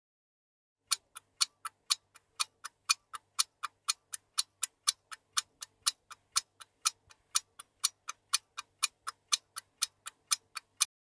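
Clock ticking: sharp, even ticks about four a second, alternating louder and softer, starting about a second in and stopping near the end.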